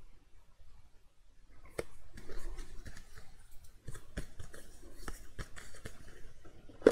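Sheets of cardstock being handled and lined up by hand: paper rustling and sliding from about two seconds in, with several sharp taps and clicks of card.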